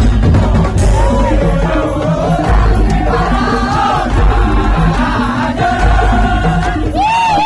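Tong-tong music: loud, steady percussion with heavy bass under a melody line that slides up and down in pitch.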